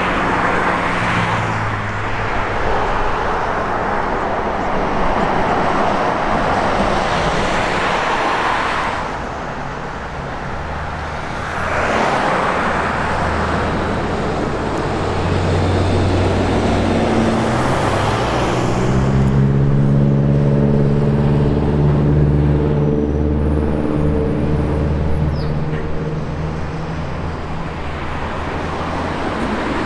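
Diesel route buses and cars passing on a suburban road, each pass swelling and fading as tyre and engine noise. About two-thirds of the way in, a heavy diesel engine's steady hum becomes the loudest sound as more buses and a truck draw near.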